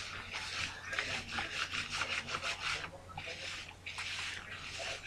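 Rubber punching balloon, worn inside out over a hand, rubbed back and forth on hair to build static: a quick run of scratchy strokes, about five a second, that slows to a few longer strokes in the second half.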